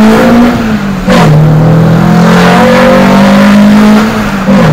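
Renault Clio Sport 2.0 four-cylinder pulling hard through the gears on a Magnaflow muffler with the stock resonator kept. The engine note climbs, drops at a shift about a second in, climbs steadily again and falls at another shift near the end. The note is deeper and sportier than stock but still discreet.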